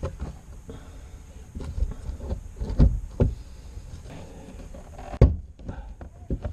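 Irregular knocks, clunks and rubbing from hands working on a remote throttle/shift control box and its cables in a cramped carpeted console. The two loudest knocks come about three seconds in and just after five seconds.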